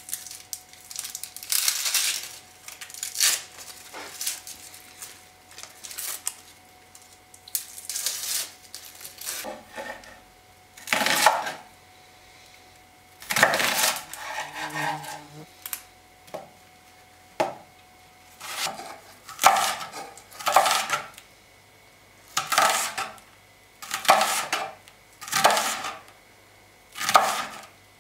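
Kitchen knife cutting an onion on a wooden cutting board: short crisp strokes, irregular at first, then settling into a steady cut every second or two from about two-thirds through.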